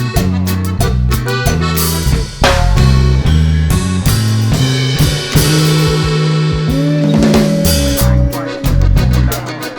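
Background music: an upbeat instrumental track with drum kit, snare and a bass line.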